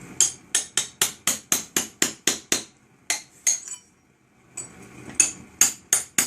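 Hammer striking in quick, sharp blows, about four a second, as the brick support is set in place: a run of about ten blows, two more, a pause of over a second, then a last quick run of five.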